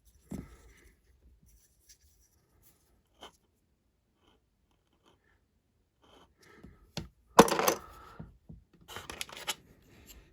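Small plastic Lego pieces clattering and rattling as they are handled: a few light clicks, then a loud clatter about seven seconds in and another rattle near the end.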